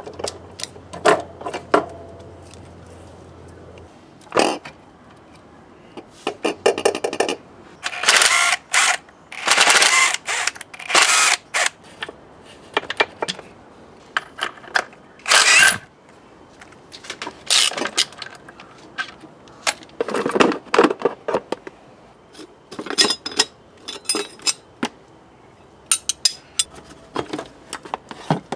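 Repeated short whirring bursts from a cordless drill-driver with a socket, running bolts out of the motorcycle's swingarm and frame, between sharp clicks and clinks of hand tools and metal parts.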